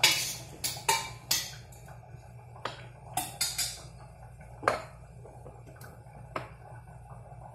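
Kitchen clatter: about ten sharp clinks and knocks of containers, lids and utensils against a pot and the counter, most of them in the first few seconds, over a steady low hum.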